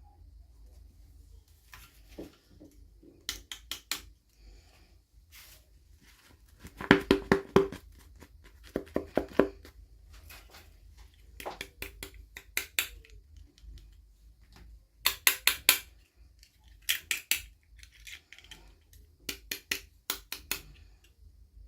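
Small plastic toy pieces and packaging being handled, in quick runs of sharp clicks and taps, about five a second, with short pauses between runs; the loudest runs come about a third of the way in and again past the middle.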